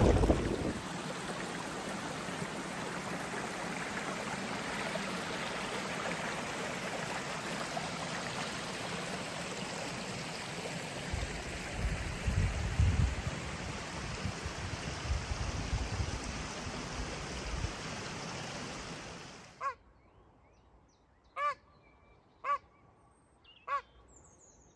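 Steady rush of running water from a stream or waterfall, with some low rumbling in the middle, cutting off abruptly about twenty seconds in. Short single calls follow in the near silence, one every second or so.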